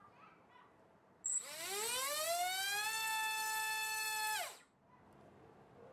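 RCX RS1407 3400KV brushless FPV racing motor spinning a Gemfan 5030 two-blade propeller on a thrust stand, on 3S at around 26,000 rpm. It spins up about a second in with a whine rising in pitch, holds a steady high whine for about a second and a half, then drops and stops suddenly.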